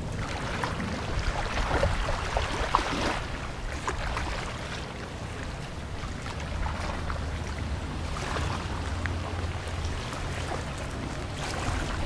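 Outdoor harbor-side ambience: wind and waves washing, swelling a few times, over a steady low hum.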